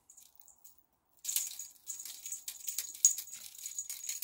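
A small bell on a wand-and-string cat toy jingling as a cat bats and tugs at it, starting about a second in and running as a quick, continuous metallic jangle.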